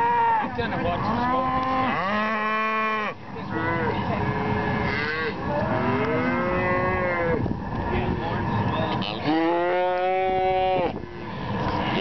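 Calves bawling in long, repeated calls, several voices overlapping, some lower and some higher pitched.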